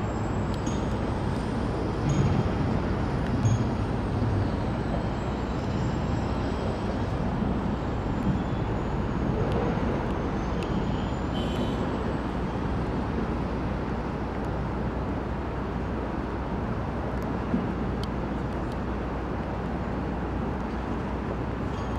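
Steady rumble of passenger trains running on the rails, with a faint high whine that wavers in pitch.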